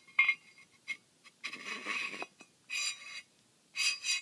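Stainless jet-ski impeller being turned by hand onto the driveshaft threads inside the pump housing and wear ring: about six short metallic scrapes with a ringing edge, coming roughly once a second, the one about two seconds in the longest.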